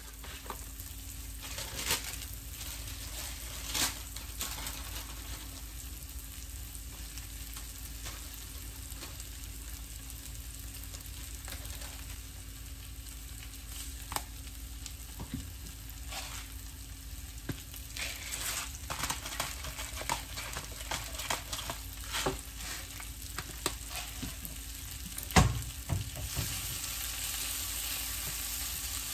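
Chopped vegetables and spinach sizzling in oil in a nonstick frying pan, with wooden chopsticks clicking and scraping against the pan as they are stirred. There is a sharp knock about 25 seconds in, and the sizzle grows louder near the end.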